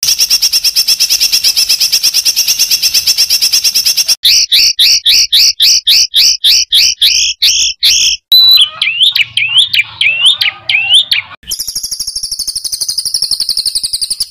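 Songbird calls from a bird-tutoring (masteran) recording: rapid, harsh repeated notes in spliced snippets that change every three to four seconds. First comes a fast, even trill, then a string of doubled notes that climb in pitch, then sweeping whistled notes, then a very high, fast trill.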